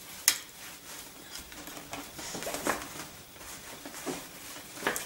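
Clothes being handled and rummaged through: rustling of fabric with scattered light knocks and clicks, including a sharp click just after the start and another pair near the end.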